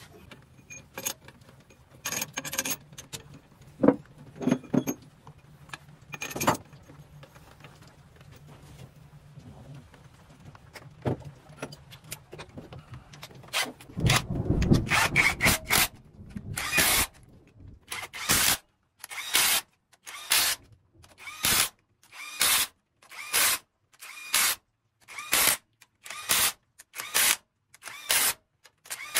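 Hand tools at work on engine bolts: scattered metal clicks and knocks, then from about halfway a regular run of short ratcheting bursts, about one a second, as bolts are run down.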